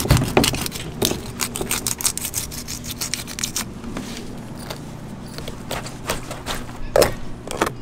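A knife cutting and scraping at a swordfish carcass during cleaning: a rapid series of short scraping strokes, with a low steady hum underneath.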